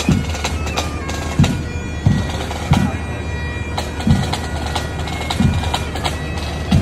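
Bagpipes playing a tune over their steady drones, with a drum beating about once every second or so.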